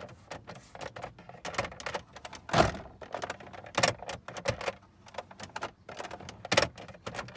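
Plastic glovebox of a 2001 Volkswagen Passat B5+ knocking and clicking irregularly, with a few louder thumps. It is loose: its mounting tabs are broken off, and its ABS plastic parts rub against each other at unfastened joints.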